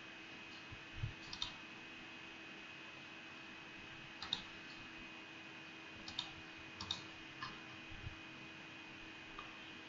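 Computer mouse clicking: a handful of short, sharp clicks spaced a second or two apart, some in quick pairs, over a faint steady electrical hum.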